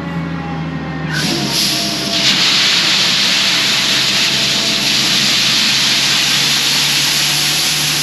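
Shelled field corn pouring from a John Deere 6620 Sidehill combine's unloading auger into a wooden grain wagon: a steady hiss of falling kernels that starts about a second in and grows fuller a second later, over the combine's engine running.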